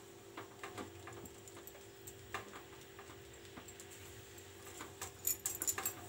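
Wooden spatula stirring a thick cashew and sugar-syrup mixture in a non-stick pan, giving scattered soft clicks and taps against the pan, with a quicker run of taps near the end. A faint steady hum lies underneath.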